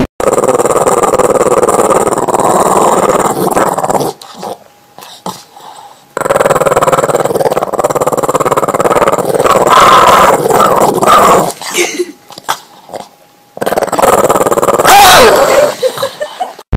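Boston Terrier growling over a rope toy in long stretches of several seconds each, with short pauses between; near the end the growl bends up in pitch.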